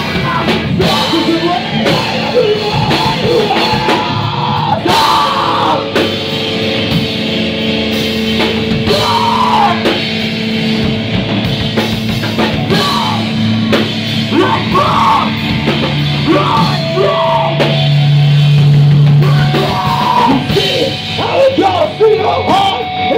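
Live band playing loud: drum kit and electric guitar under a vocalist yelling into a microphone. A low note is held strongly for a few seconds near the end.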